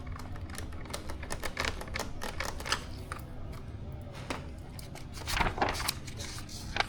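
Irregular small clicks and taps of screws being started and driven with a hand screwdriver into the plastic parts of an RC model plane, with parts being handled.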